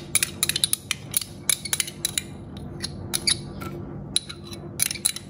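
Metal spoon scraping and clinking against a small glass dish, scraping out an egg yolk, in quick irregular ticks.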